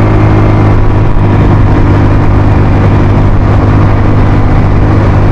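Suzuki Skydrive automatic scooter's single-cylinder engine running at a steady held throttle, pulling uphill under load with two people aboard. The pitch stays even throughout.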